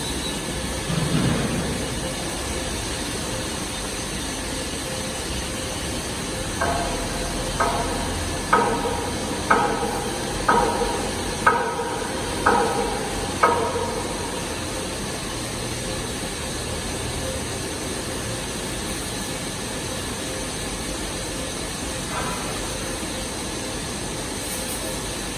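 Steady machine-shop noise with a constant hum and hiss. About a quarter of the way in comes a run of eight sharp metallic strikes, about one a second, each ringing briefly.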